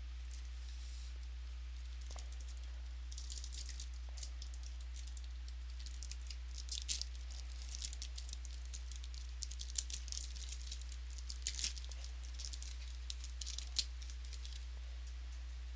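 Trading cards and foil pack wrappers being handled: soft slides, flicks and crinkles, scattered from about three seconds in, over a steady low electrical hum.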